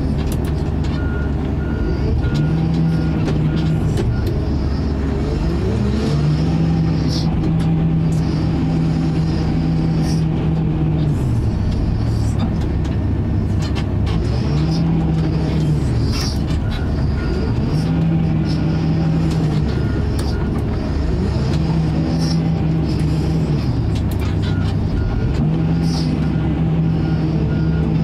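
Case 621G XT wheel loader's diesel engine heard from inside the cab, revving up and settling back down again and again through its working cycles. A beeping alarm sounds in three short spells: near the start, about halfway, and near the end.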